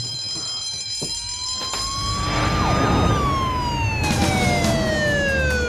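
Ambulance siren wailing: from about a second in its pitch climbs slowly, then falls in one long glide. A low vehicle rumble runs beneath it.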